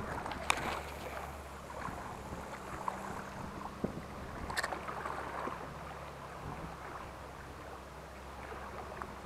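Sea water washing around a boat, with a low steady hum underneath. Two sharp clicks, one about half a second in and one near the middle.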